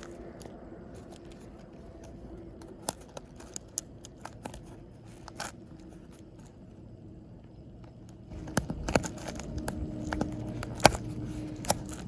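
Hands handling PEX tubing, fittings and foam pipe insulation: scattered clicks, scrapes and rustles. The sounds become busier and louder about two-thirds of the way through.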